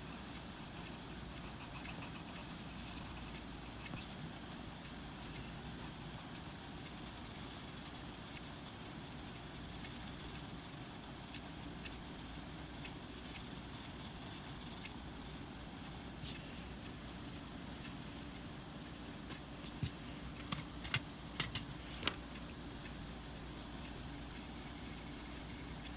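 Steady low rumble of background noise, with a handful of short sharp clicks or taps about twenty seconds in.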